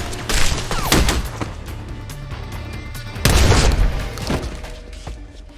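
Film gunfight sound: gunshots and impacts over action music, with the loudest blast about three seconds in, after which the noise dies away.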